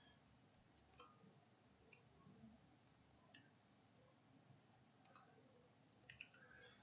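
A few faint, sparse clicks of computer keyboard keystrokes, about half a dozen spread over several seconds, over near silence.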